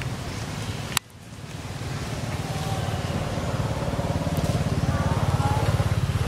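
Low, steady motor rumble with a fine regular pulse, cut by a sharp click about a second in, then growing louder over the following seconds.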